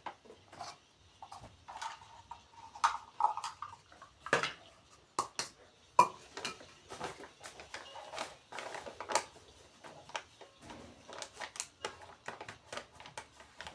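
Kitchen utensils clinking and knocking against bowls and containers as flour is scooped and measured out, in scattered irregular taps with one sharper knock about six seconds in.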